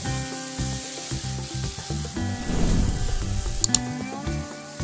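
Chickpeas in thick masala sizzling in a non-stick kadai while a spatula stirs and scrapes them around the pan, with a few sharp clicks of the spatula against the pan near the end. Background music plays underneath.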